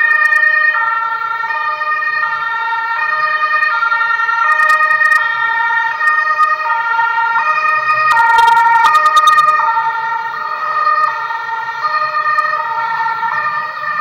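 Ambulance two-tone siren, loud, switching steadily back and forth between a high and a low note, each held for a little under a second.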